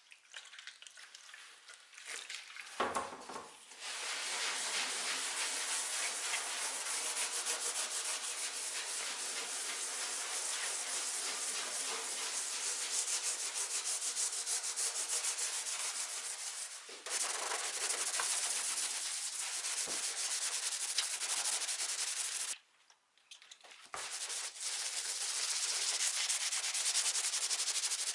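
Sanding or abrasive rubbing on the old wood of an antique wardrobe: a dense, steady scratching in long runs, broken by a short pause about 17 seconds in and a near-silent gap of about a second and a half a little after 22 seconds.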